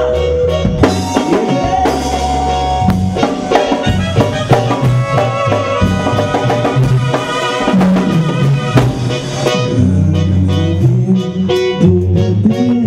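Live duranguense band music, instrumental: a Korg Triton keyboard plays the melody over drum kit and bass.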